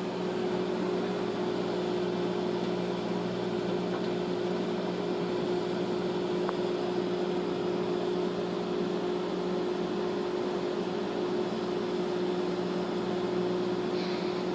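Microwave oven running: a steady electrical hum over an even rushing fan noise.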